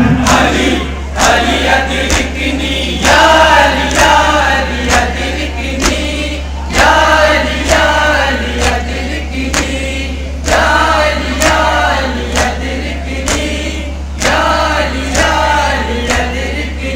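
Men chanting a mourning lament together in phrases, punctuated by loud rhythmic chest-beating (matam) about once a second, with a steady low hum underneath.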